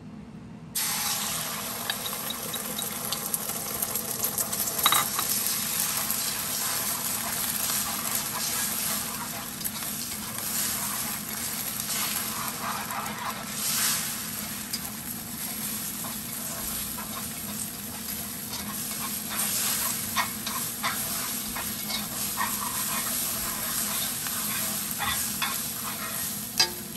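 Beaten eggs hit a hot oiled wok and start sizzling suddenly just under a second in, then fry steadily. Long wooden cooking chopsticks stir and scrape them around the metal pan throughout, with scattered light clicks.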